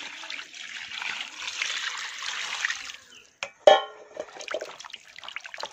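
Water poured from an aluminium pot into a plastic basin of raw chicken pieces, a steady splashing pour for about three seconds that stops abruptly; hands then slosh and rub the chicken pieces in the water. A short, sharp sound with a brief pitched tone comes about three and a half seconds in.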